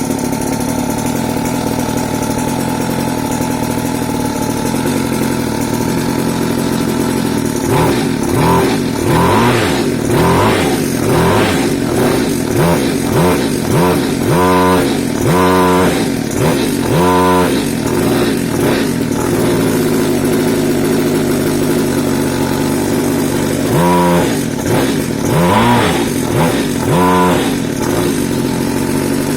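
A goped's 50cc engine running through an aftermarket exhaust. It idles steadily at first; from about eight seconds in, the throttle is blipped again and again, each rev rising and falling back. After a steadier stretch, a few more revs come near the end.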